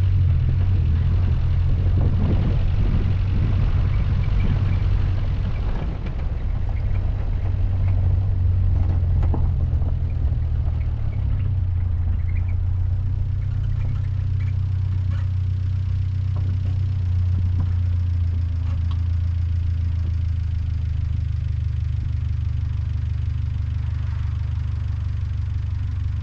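A car driving along: a steady low rumble of engine and road, with more tyre noise over the first six seconds or so.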